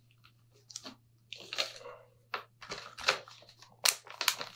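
Packaging rustled and crinkled by hand in a series of short bursts while a box of cigars is unpacked, over a steady low hum.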